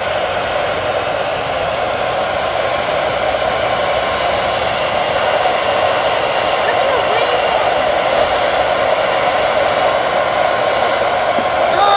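Handheld hair dryer running steadily, a constant rush of blowing air, aimed at crayons to melt the wax.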